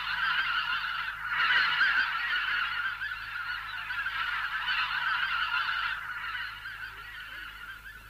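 A flock of geese honking in flight, many calls overlapping, dying down toward the end.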